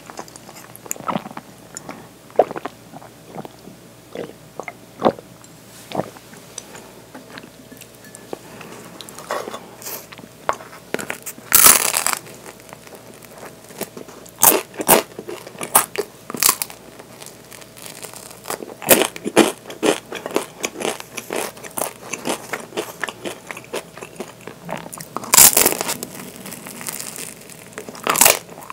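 Close-miked eating: a soft bakery bun bitten into, with a loud bite about twelve seconds in and another near the end, and wet chewing and small mouth clicks in between.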